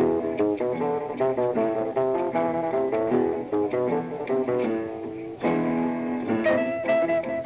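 Live jazz trio music led by an archtop guitar picking quick runs of plucked notes, with double bass and piano behind it. About five and a half seconds in, a new phrase of longer-held notes begins.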